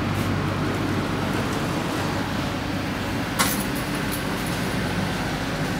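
Steady rumble and low hum of running noise inside a 2016 PT INKA executive passenger carriage, with a single sharp click about three and a half seconds in.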